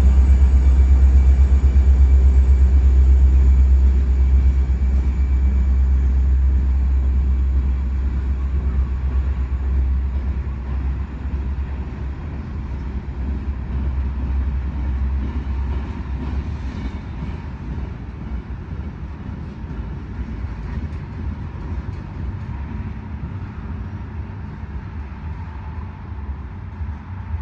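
Union Pacific railroad tie work train passing with a deep, low sound that fades steadily as it moves away.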